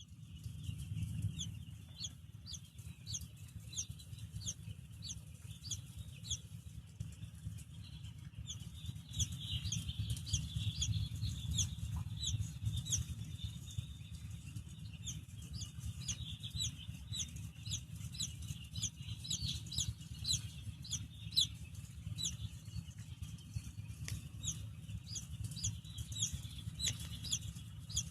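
Baby chick peeping: a continuous run of short, high, downward-sliding chirps, several a second, over a steady low hum.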